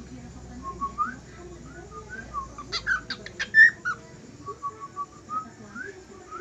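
Cockatiel whistling: a run of short rising whistled notes, with a burst of sharper, louder chirps about three seconds in and a quick string of short even notes near the end.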